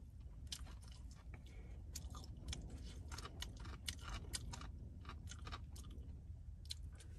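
A person chewing mouthfuls of rice eaten with chopsticks from a steel pot, many short irregular clicks of chewing.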